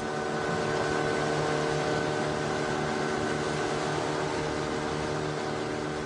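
A motor running at a steady speed: an even, unchanging hum under a hiss.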